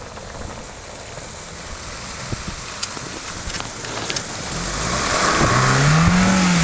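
Honda HR-V's engine revving up under load from about halfway through, its pitch climbing and then easing off near the end, over steady road and snow noise with a few light ticks early on.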